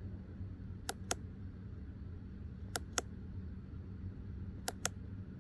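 Light, sharp clicks in pairs, three pairs evenly about two seconds apart, from a remote-controlled relay board being cycled through its programming mode, over a faint steady electrical hum.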